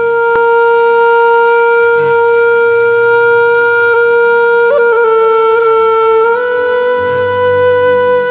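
Instrumental music: a wind instrument holds one long note, with a brief waver about halfway and a slight step up in pitch near the end, over a soft low drone.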